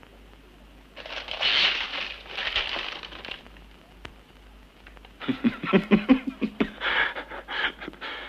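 Paper rustling for a couple of seconds, then a run of quick, irregular clacks and knocks from a manual typewriter and its paper being handled.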